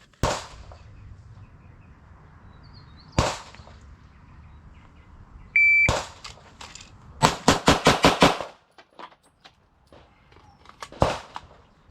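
A shot-timer start beep, then a Glock 17 9mm pistol fires six rapid shots in a little over a second, the last shot about 2.7 seconds after the beep. A few single gunshots come in separately, one near the start, one about 3 seconds in, one just after the beep and one near the end.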